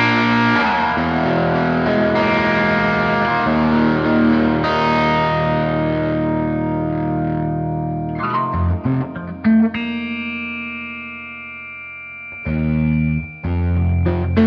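Distorted electric guitar chords from a Gibson Les Paul Custom through a cranked, hand-wired Fender '57 Custom Twin-Amp, with a Marshall Plexi-like crunch. Long ringing chords give way to a few short, choppy stabs twice in the second half, with a chord left to ring and fade between them.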